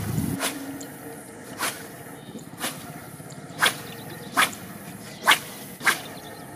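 Spinning rod swishing through the air during casts: a series of about seven short, sharp swishes, roughly a second apart.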